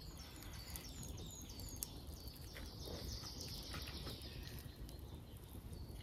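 Forest birds singing faintly: a quick series of short, high notes, each falling in pitch, in the first couple of seconds, then a higher held note, over a steady low background noise. A few faint clicks come from a spoon in a cast-iron Dutch oven.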